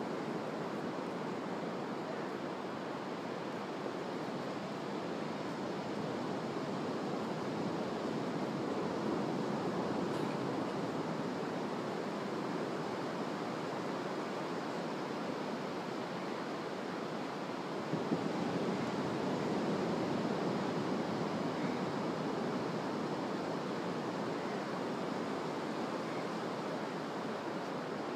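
Ocean surf breaking and washing up a sandy beach: a steady rush that swells louder about a third of the way in and again past the middle, with one brief knock as the second swell begins.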